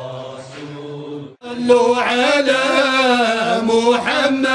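Men's voices chanting a Sufi samaa: a long held note with an ornamented melody winding above it. It cuts in suddenly about a second and a half in, after a softer murmur of voices.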